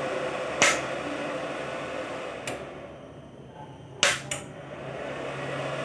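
Cooling fan of an RYU 450 W IGBT inverter welder running with a steady whir, with sharp clicks from its rocker power switch. The whir drops out after a click about two and a half seconds in and comes back after a pair of clicks about four seconds in.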